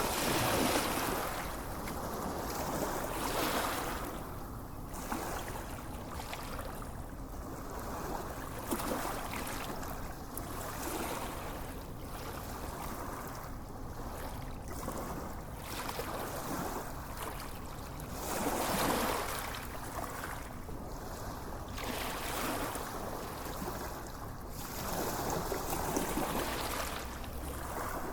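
Gentle waves washing onto a sandy beach, swelling and receding every few seconds.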